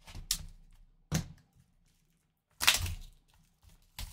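Plastic shrink-wrap being torn and pulled off a cardboard trading-card box: a few short crackles, then a longer crinkle about two and a half seconds in and more crackling near the end.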